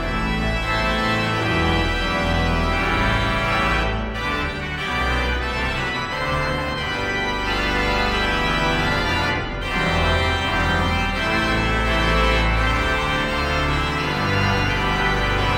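Organ music: full sustained chords over a deep bass line, beginning just as the talk ends.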